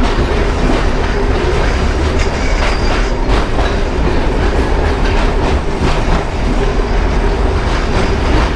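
Kolkata suburban local train running: a steady heavy rumble with a hum, and wheels clicking over the rail joints.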